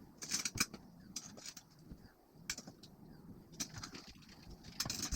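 Scattered small clicks and rustles of parts and hardware being handled during a 3D printer's assembly.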